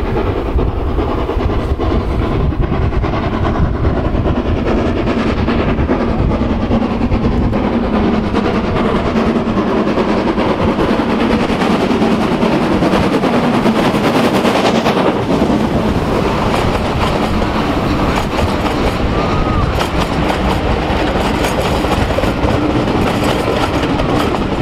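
A steam locomotive hauling a passenger train, running loud and steady as it approaches and passes close by. From about two-thirds of the way in, the wheels clatter over the rail joints.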